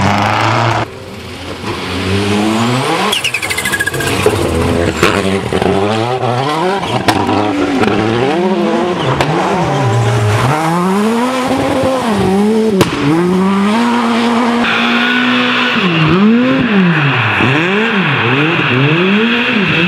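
Rally car engines revving hard up and down through a series of gear changes as the cars are driven through corners on a snowy stage. In the last few seconds a Škoda Fabia S2000 revs in quick repeated rises and drops as it slides through a bend.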